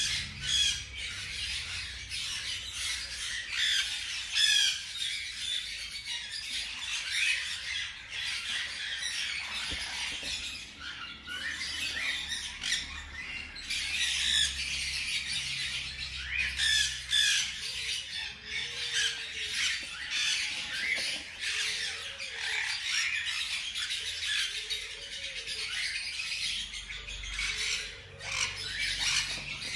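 Newborn hamster pups squeaking: a dense run of rapid, high-pitched chirps that keeps going without a break.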